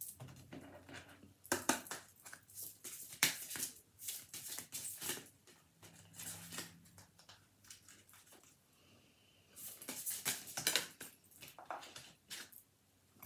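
A deck of oracle cards being shuffled by hand: quick papery flicks and rustles in short runs with pauses between.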